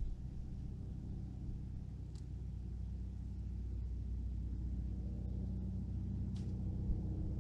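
Steady low engine rumble with a hum-like drone, slowly growing a little louder, with a couple of faint light ticks.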